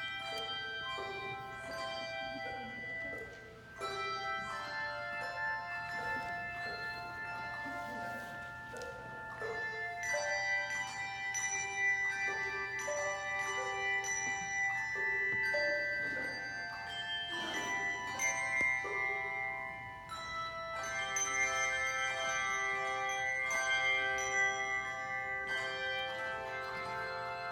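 Handbells played by a children's handbell choir: many struck notes ringing on and overlapping as a tune, a little louder from about ten seconds in.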